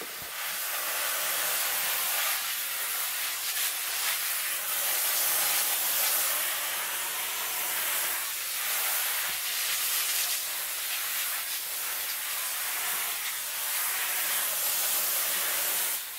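Brass adjustable mist nozzle on a garden hose spraying a fine mist onto garden soil: a steady hiss of water, shut off abruptly near the end.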